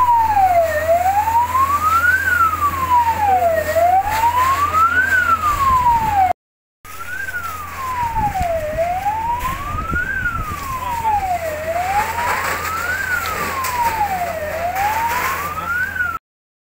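Emergency vehicle siren wailing, its pitch rising and falling slowly, about one rise and fall every three seconds, over a steady low hum. The sound breaks off for a moment midway and again near the end.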